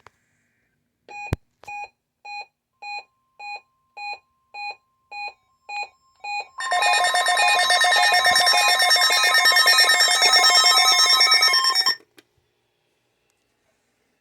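Electronic alert tones of a NOAA Weather Radio required weekly test. A sharp click comes first, then about ten short, evenly spaced beeps at roughly two a second. Then about five seconds of a loud, dense, rapidly pulsing alarm tone that cuts off suddenly.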